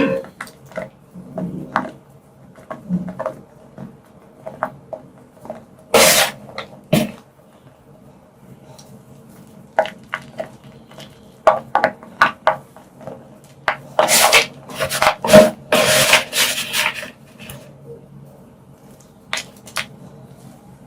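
Purple-dyed gym chalk being crushed and crumbled, giving scattered crisp crunches and snaps, with a dense run of crunching about fourteen seconds in.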